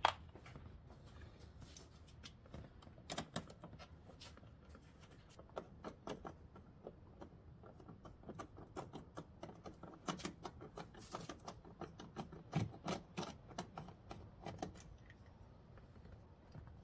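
Irregular light clicks, taps and rattles of wires, plastic connectors and small tools being handled at a car's dashboard radio opening, busiest from about ten to fifteen seconds in.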